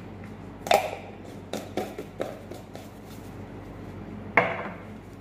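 Spoon clinking and knocking against spice jars and a dish as spices are measured out: a handful of sharp clicks, the loudest about four and a half seconds in, over a steady low hum.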